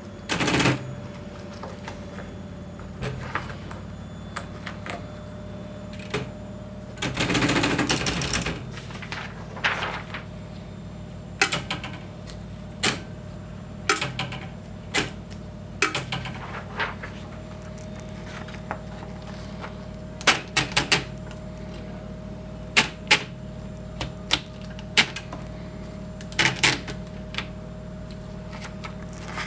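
Alpina manual typewriter being typed on slowly: single sharp key strikes at irregular intervals, with a longer rasping sound lasting about a second and a half about seven seconds in. A steady hum runs underneath.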